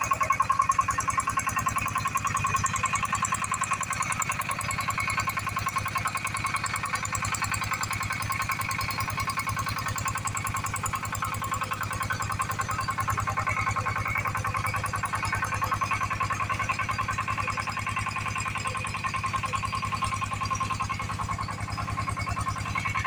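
Small stationary engine driving an irrigation water pump, running steadily at a fast, even beat with a constant whine above it.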